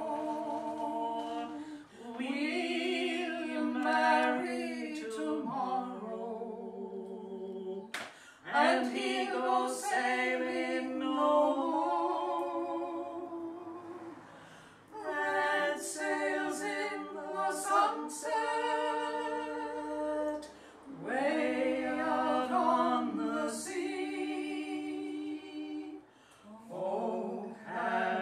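Unaccompanied voices singing a slow song in phrases of held notes, with short breaks for breath between phrases.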